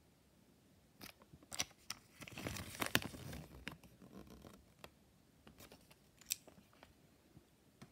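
Kinder Joy packaging being handled and torn open: crinkling and tearing of the wrapper, densest from about one to four seconds in, with scattered sharp clicks of plastic after it.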